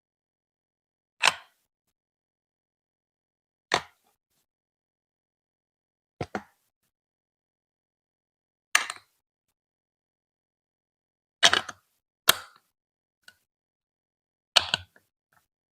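Lego Duplo plastic bricks clacking as they are set in place on the track, one sharp clack about every two and a half seconds, with a double clack near the middle.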